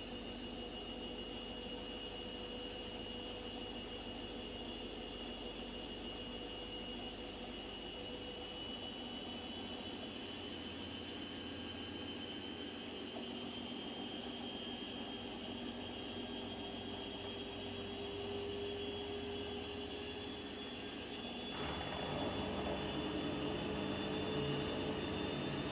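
Washing machine running, with a steady high motor whine that rises slowly in pitch over a noisy hum. About 21 seconds in, a louder rushing noise joins.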